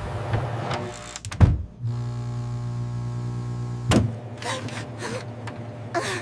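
Cartoon sound effects: a sharp knock, then a steady mechanical hum for about two seconds that ends in another knock, followed by fainter swishing sounds.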